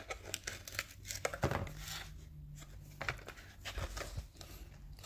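Plastic blister pack of a carded Hot Wheels diecast car crinkling and crackling in the hands, with irregular small clicks as the glued-down blister is handled and pried at.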